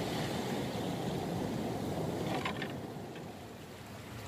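Sea surf washing and breaking over shore rocks: a steady rushing that eases off somewhat in the second half.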